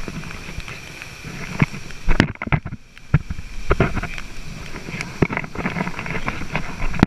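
Rushing white water of a waterfall, heard as a steady rumbling hiss right at the camera, with irregular knocks and splashes against it; the sound goes muffled for a moment about two seconds in.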